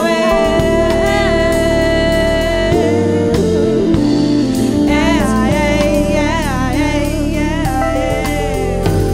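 Live soul band playing: female vocals hold a long note, then sing wavering runs, over drums, bass guitar and keyboard.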